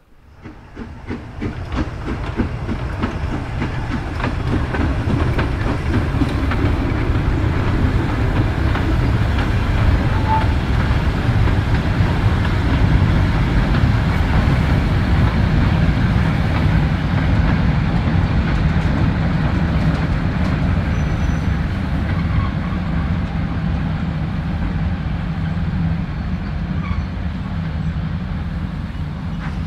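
Steam locomotive hauling a train, with a fast, regular beat. It builds up over the first two seconds, then runs steadily and loudly.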